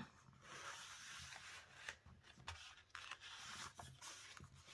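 Faint handling of paper and card: soft rustling and rubbing with a few light clicks.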